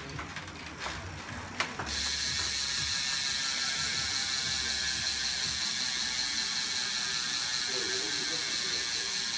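Freehub ratchet of a Powertap G3 hub in an ENVE rear wheel buzzing as the wheel spins freely with the cranks still: a fast, even stream of clicks that starts suddenly about two seconds in, after a couple of single clicks, and stays steady.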